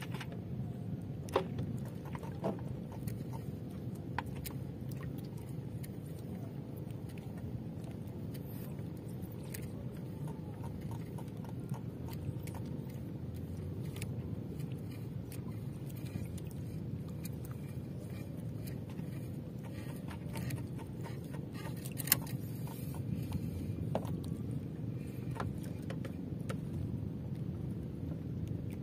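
Steady low rumble of open-water ambience around a small outrigger boat, with scattered light clicks and knocks of a handline and fish being handled in the hull; one sharper knock comes about 22 seconds in.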